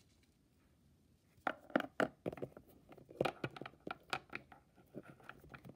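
Small plastic toy figurines being handled and set down on a hard wooden surface: irregular light clicks, taps and scrapes that start about a second and a half in.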